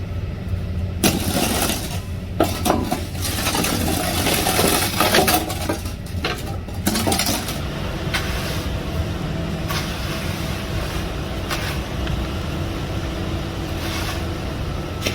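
An engine running steadily through a concrete pour, with bursts of rushing and scraping from wet concrete being poured and worked, heaviest in the first half.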